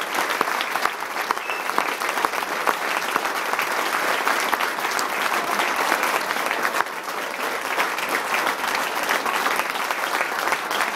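Large audience applauding, a steady crowd of clapping hands that holds at an even level throughout.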